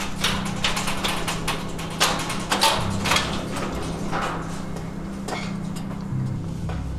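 Footsteps, about three a second at first and then further apart, over a steady low hum.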